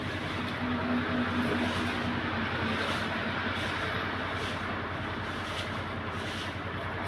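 Steady vehicle noise running on without a break, with a faint steady hum in the first few seconds.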